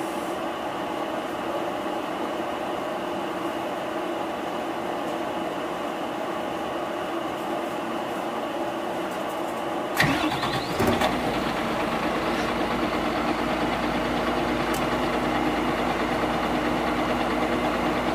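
Mitsubishi Fuso QKG-MP38FK city bus's diesel engine, silent under a steady hum, is started about ten seconds in: a sudden burst as it cranks and catches, then a second burst. It then settles into a steady, low idle.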